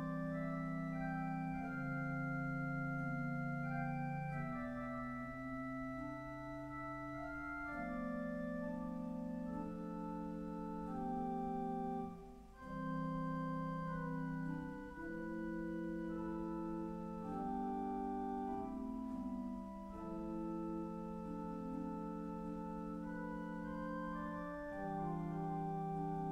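Church pipe organ playing a piece in several parts, long held notes and chords shifting under a moving upper line, with one brief break in the sound about twelve seconds in.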